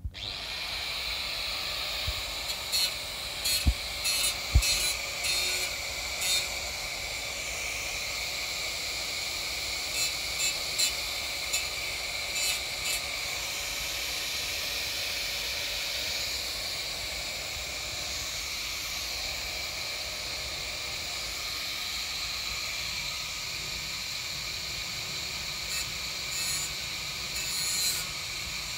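Electric angle grinder switched on and running with a steady high whine. Its disc bites the steel rim of a clothes-dryer drum in several short bursts of harsh grinding, throwing sparks.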